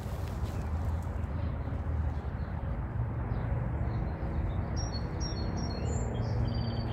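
Small birds chirping, a quick run of short high calls beginning a little past halfway, over a steady low rumble.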